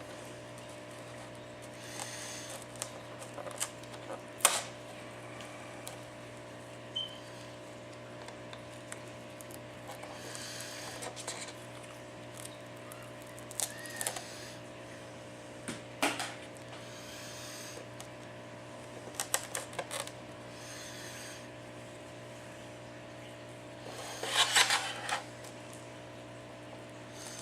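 Scattered small clicks and short scrapes as a prying tool works around the edge of an iPad 4's glued glass digitizer, separating it from the frame, over a steady low electrical hum. The densest run of scraping and clicking comes near the end.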